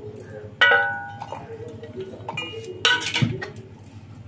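A stainless-steel plate and a steel mixer jar clanking together twice, about half a second in and again near three seconds. Each strike rings briefly.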